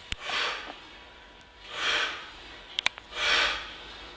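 A man breathing out hard three times, about one and a half seconds apart, once with each repetition of a cable leg exercise, with a few short sharp clicks in between.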